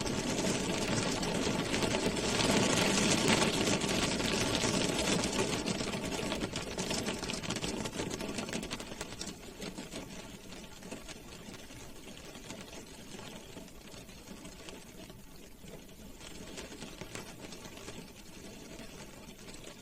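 Rain drumming on a car's roof and windows, heard from inside the cabin as a dense, fast patter of drops. It is heavier for the first several seconds, then eases to a lighter patter about halfway through.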